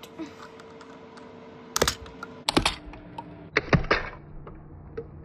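Plastic Lego pieces clicking and clattering as they are handled, in three short bursts of sharp clicks with a few light ticks between.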